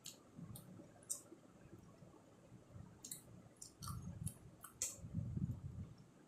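Someone eating a meal of rice and fish curry: scattered sharp, wet mouth clicks and smacks over soft chewing. The clicks come thickest a little past the middle.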